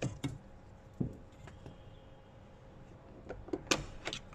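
Sharp plastic clicks and snaps as the Jeep Wrangler JK's rear door trim pieces are pried loose: two near the start, one about a second in, and a quick cluster near the end. A faint steady hum runs underneath.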